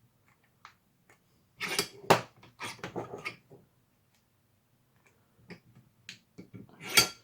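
Handling clicks and knocks as a plastic blaster shell is set into a bench vise and clamped, hard plastic and metal vise parts tapping together in short scattered groups, the sharpest knock near the end.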